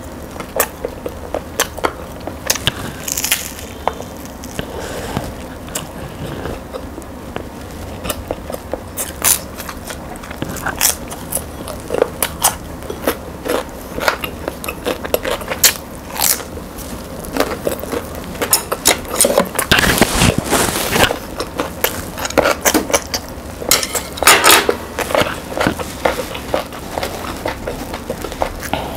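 Close-miked eating of a crusty bread roll filled with pork pâté: bites into the crust and chewing, full of small crackles and clicks, with a few louder crunchy clusters about two-thirds of the way in.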